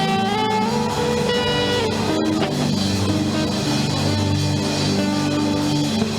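Background worship music with guitar: slow, held chords that change every second or so, with no singing.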